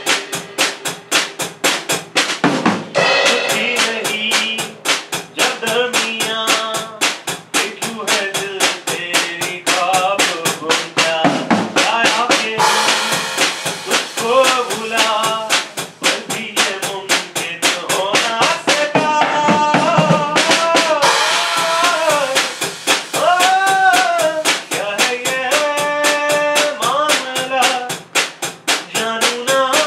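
Acoustic drum kit played live: a steady, busy beat of snare, bass drum and cymbals, with a pitched melody line over it.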